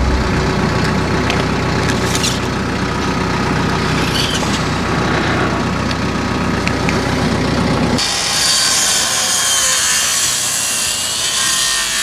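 Compact diesel tractor engine running steadily while its front loader holds a man basket raised. About two-thirds of the way through the low engine sound drops away and a loud steady hiss takes over.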